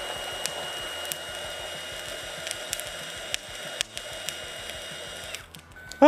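Stick-welding arc at about 160 amps, with the electrode burning against a thin steel plate: a steady crackling hiss with scattered sharp pops and a steady high whine. It cuts off a little past five seconds in.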